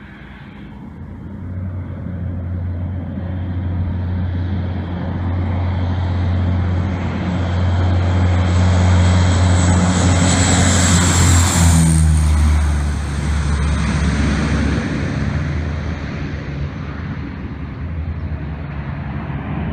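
A Bombardier CL-415 water bomber's twin turboprop engines drone as it approaches low over the water, growing louder. It is loudest as it skims the lake about ten seconds in, with a rush of water spray, then the drone drops in pitch and fades as the aircraft climbs away.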